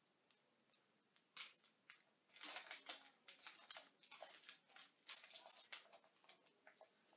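Scissors snipping at the packaging of a small plastic toy ornament: a string of short, crisp snips and rustles beginning about a second and a half in.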